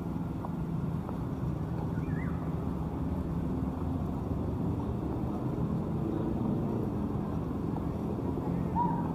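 Steady low rumble of city traffic, with two brief faint chirps, one about two seconds in and one near the end.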